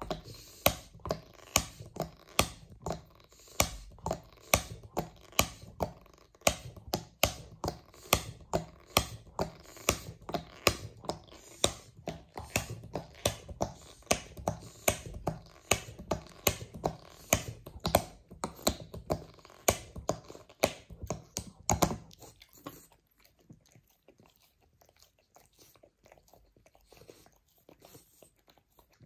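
French bulldog chewing a bone-shaped chew toy, a steady run of sharp clicking bites about two a second. The bites fall much quieter about three-quarters of the way through.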